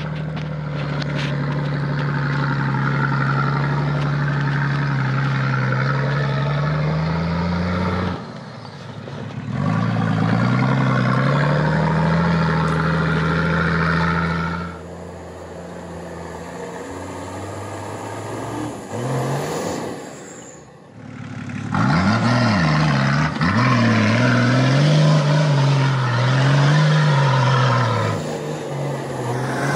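A 4x4's engine working hard off-road, its revs climbing and falling again and again as it is driven over rough ground. There is a brief drop about eight seconds in and a quieter stretch in the middle, then the revs rise and fall unevenly.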